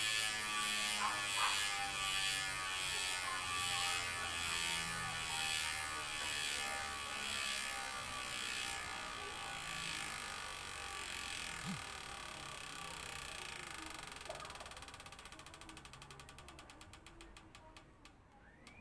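Chris King rear hub freewheeling as the wheel coasts down: a buzz whose pitch slowly falls, breaking up into separate rapid clicks that slow and fade near the end.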